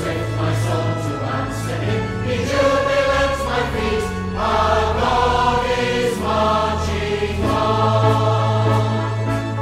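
A choir singing slow, long-held chords with instrumental backing, the harmony changing every second or two over a sustained bass.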